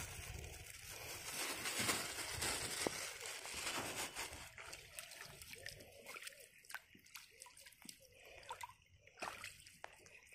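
Shallow floodwater sloshing and splashing as hands pull and shake a wet fishing net in it. The sound is busiest for the first four seconds or so, then thins to scattered drips and small splashes.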